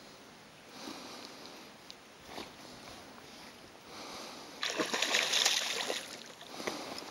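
A large fish thrashing at the water surface and splashing, with scattered small splashes at first and then a loud burst of churning splashes lasting about a second and a half, a little over halfway through.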